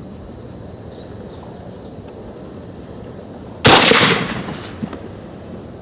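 A single shot from a PSL-54R semi-automatic rifle in 7.62x54R, fired about three and a half seconds in. The sharp report dies away over about a second.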